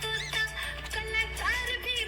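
Music playing: a Bollywood-style song with held melodic notes and a steady bass line.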